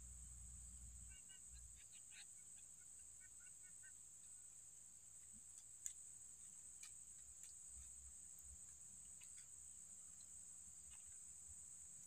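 Faint, steady high-pitched insect drone, with a few soft clicks scattered through it.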